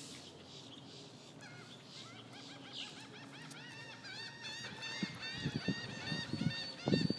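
Many birds calling together in quick, high, repeated notes that rise and fall, overlapping and starting about a second and a half in. From about five seconds, low rumbling bumps come and go, loudest near the end.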